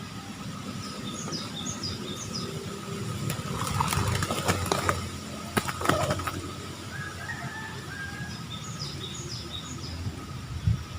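Outdoor bird ambience: a small bird gives a quick run of four high chirps twice, about a second in and again near the end. In the middle comes a louder flurry of rustling and clattering, like wings flapping against leaves or a trap, over a low steady rumble.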